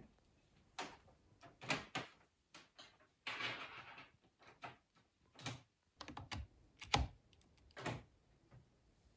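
A USB capture dongle and its cables being handled and plugged into a laptop's USB port: a run of irregular clicks and knocks, with a short rustle near the middle.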